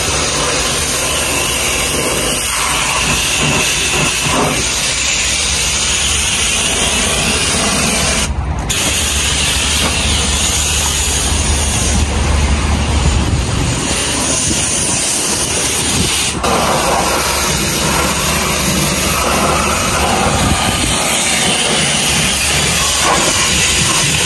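Self-service jet wash lance on power rinse, blasting high-pressure water onto a car's wheels and bodywork. A steady loud hiss of spray over a low hum, briefly cut about eight seconds in.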